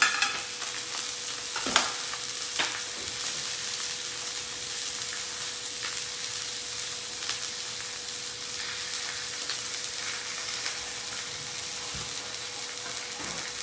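Salmon fillet frying skin-side down in a little oil in a stainless steel skillet over medium-high heat: a steady sizzle as the skin crisps, with a couple of sharp pops about two seconds in.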